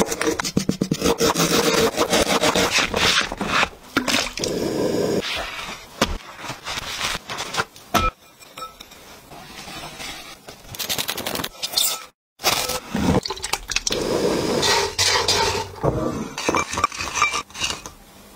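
Chef's knife slicing fresh ginger root on a wooden cutting board in quick, closely spaced strokes, followed by scraping and rustling as ginger slices are tossed with sugar by hand in a glass bowl.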